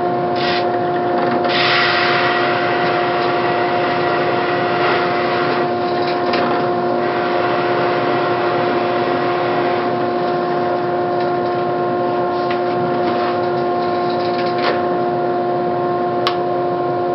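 Dust collector and drill press running with a steady hum, while a hinge-boring bit cuts into MDF cabinet doors in a few short grinding bursts, the loudest about two seconds in.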